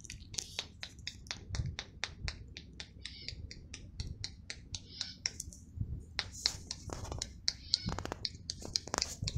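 Sharp, irregular clicks, several a second, with faint hissy sounds between them.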